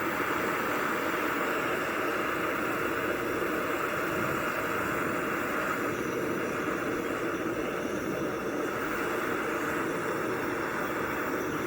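Steady hiss of a gas torch flame held on steel to heat it for straightening, not acetylene.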